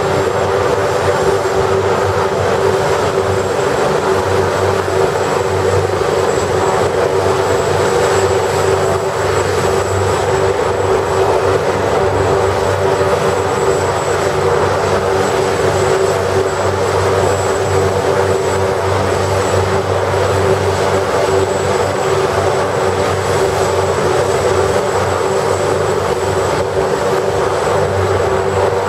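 AugustaWestland AW139 helicopter running on the ground with its twin turboshaft engines and rotors turning, a steady turbine whine with a thin high whistle over a low rotor hum.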